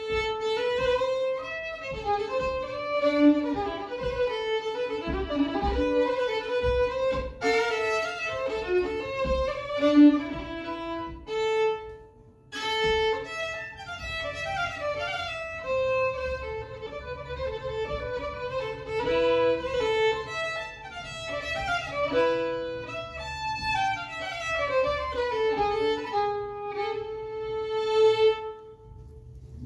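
Fiddle playing a Swedish folk tune with band accompaniment and a low beat underneath. The music drops out briefly about twelve seconds in, then goes on, and eases off near the end.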